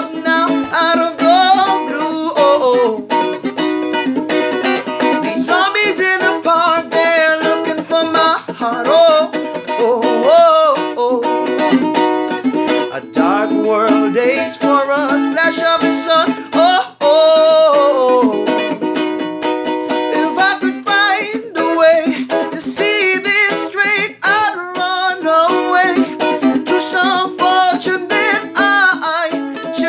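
Music: plucked strings with a wavering melody line over them, with no sung words.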